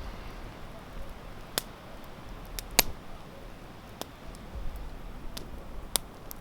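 Campfire crackling: a handful of sharp, irregular pops and snaps from the burning wood over a faint low rumble of wind.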